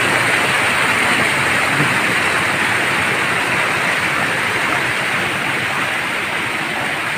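Stream water rushing steadily over a small concrete weir, an even hiss that eases a little toward the end.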